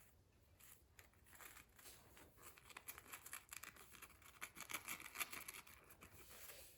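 Faint, rapid scratching and rustling of small objects being handled. It builds about a second in, is densest in the middle, and fades near the end.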